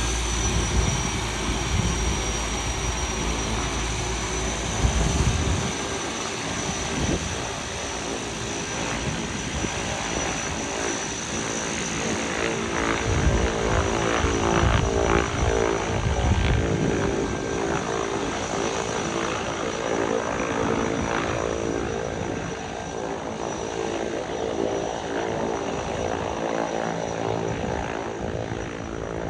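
De Havilland Canada DHC-2 Turbo Beaver floatplane's PT6 turboprop engine and propeller running, with a steady high turbine whine, a little louder in the middle. Wind gusts buffet the microphone with a low rumble during the first several seconds.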